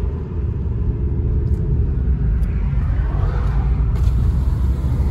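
Steady low rumble of a car driving: engine and road noise.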